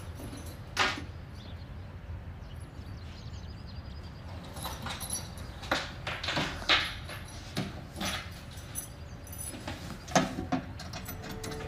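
Scattered light clicks and knocks of small objects being handled and a dresser cabinet door being opened, with a cluster of them in the middle and a few more near the end.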